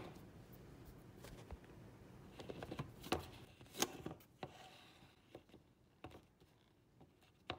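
Soft plastic clicks and knocks from a Magic Bullet blender's cup and blade base being handled and screwed together, a handful of separate clicks over the first five seconds.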